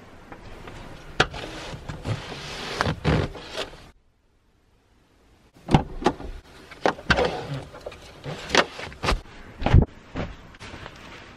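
Irregular knocks, thumps and rustling of things being handled and moved about in the back of a car, with a brief silence about four seconds in.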